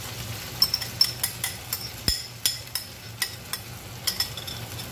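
A metal spoon scraping and clinking against a glass bowl as sweet and sour sauce is emptied into a frying pan of vegetables: sharp, irregular clicks a few times a second over a low steady hum.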